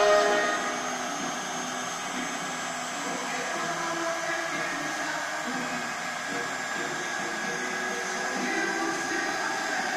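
CNC wood router running, its spindle motor giving a steady whirring hiss. A loud, high pitched whine at the very start falls away within the first second.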